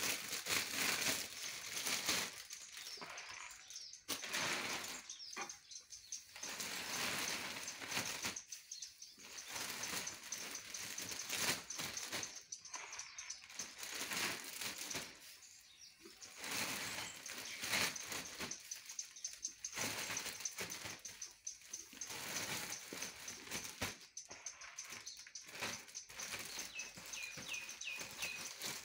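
Clear plastic bag crinkling and chopped straw rustling in irregular bursts as the bag is shaken open and packed with straw by hand. A few short high chirps sound near the end.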